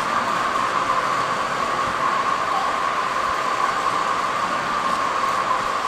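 Steady, even background noise with a hiss-like band in the middle pitches, unchanging throughout; no separate strokes or knocks stand out.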